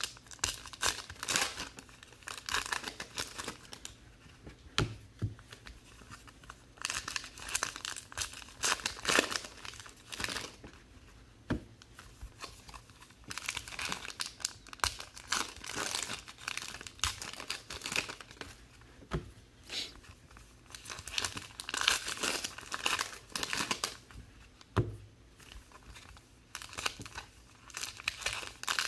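Foil wrappers of 2019 Allen & Ginter trading card packs being torn open and crinkled by hand, in irregular bursts of crackling with short pauses between.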